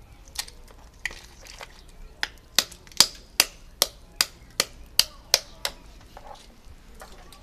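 Land snail shells cracking as they are broken open by hand: a run of about a dozen sharp cracks, two to three a second, loudest in the middle.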